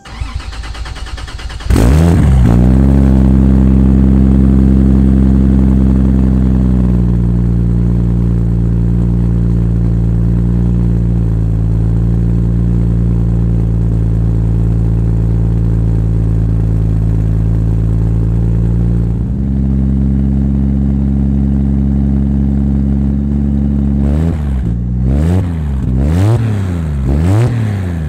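Mk4 Toyota Supra's straight-six cranking on the starter for under two seconds, then catching and settling from a fast idle to a steady idle; near the end it is revved about four times in quick blips. It runs with a minor exhaust leak and the cold-side intercooler piping off.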